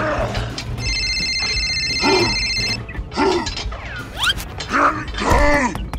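Dubbed sound effects of a toy being strained against: short pitched straining grunts repeating about once a second, mixed with a mechanical ratcheting creak, over a low background music bed.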